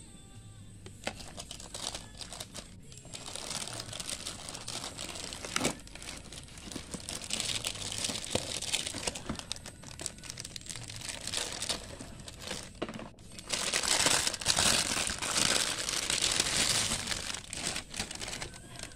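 Clear plastic bag crinkling and rustling as it is handled and pulled off a small thermal receipt printer by hand, loudest in the last third.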